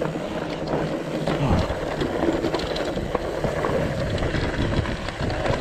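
Mountain bike rolling over a rocky dirt trail: tyres crunching on dirt and stone, with many small clatters from the bike over rocks. A low rumble comes in about a second and a half in.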